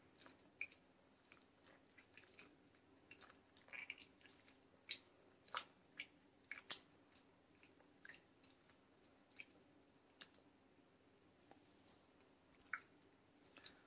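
Faint, scattered wet squelches and small clicks of fingers squeezing soaked tamarind pods in a bowl of water, working the pulp loose.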